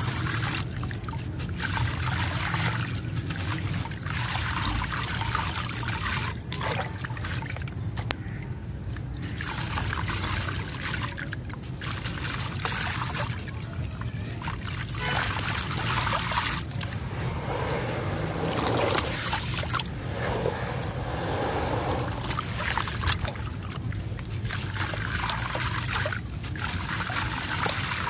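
Dry sand-cement chunks crumbled by hand, the gritty sand streaming and falling into a basin of water, in bouts of a few seconds with short pauses between.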